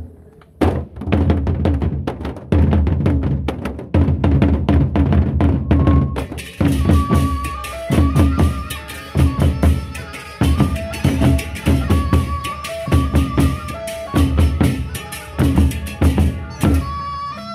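Gendang beleq ensemble of large double-headed Sasak barrel drums beaten in a fast, steady interlocking rhythm, starting half a second in. From about six and a half seconds, bright metallic clashing and a melody of short pitched notes join the drums.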